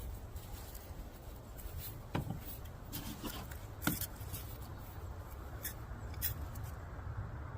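A steady low rumble with a few small clicks and taps: about two seconds in, at about four seconds, and twice near six seconds.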